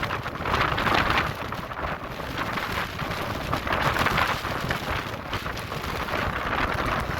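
Strong gusting wind buffeting the microphone, a loud rumbling roar that surges and eases every second or so.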